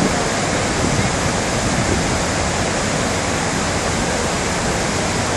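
Water pouring steadily over Pulteney Weir on the River Avon: a continuous, even rush of white water.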